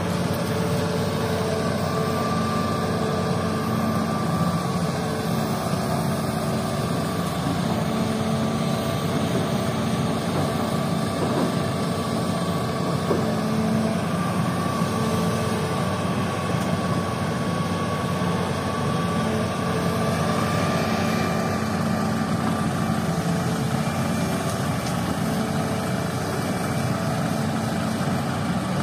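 Hitachi hydraulic crawler excavator's diesel engine running steadily as it digs and swings sand, with a whining tone that rises and falls slightly in pitch as the machine works.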